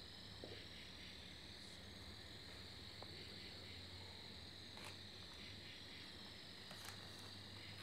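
Faint night chorus of crickets and other insects: a steady high trill that wavers slowly, over a faint pulsing beat. A low steady hum runs under it, and a couple of faint ticks come late on.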